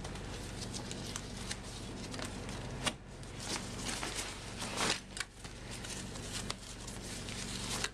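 Fabric of an avalanche airbag backpack rustling and crinkling as hands press it down and handle its flap and zipper pulls, with scattered small clicks and scrapes.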